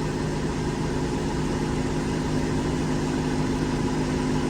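An engine idling steadily, with an even low hum that holds the same pitch throughout.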